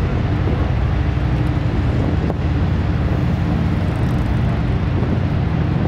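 Niagara Falls pouring over the cliff: a loud, steady, deep rush of falling water that cuts off suddenly at the end.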